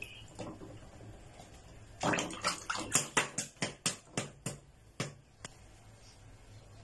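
Faint water sounds, then a soft-boiled egg's shell being tapped to crack it: about a dozen quick, sharp taps at roughly four a second, spaced out and fading after about three seconds.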